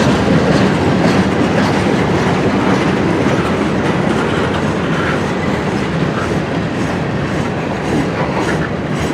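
Freight cars of a long CN freight train rolling past steadily, wheels running on the rails.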